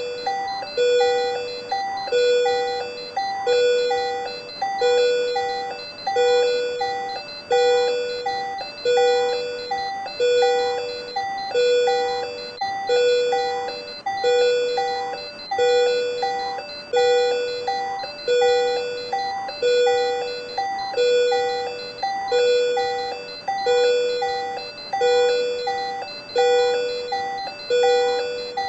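Patient monitor alarm chiming over and over, about once a second, each tone fading after it starts: the monitor's alarm for supraventricular tachycardia (SVT).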